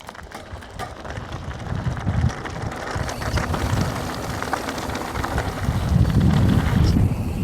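Mountain bike being ridden down a dirt jump line: wind buffeting the microphone and tyres rumbling over dirt, with the rear hub's freewheel ratchet clicking as the bike coasts; it grows louder over the last few seconds.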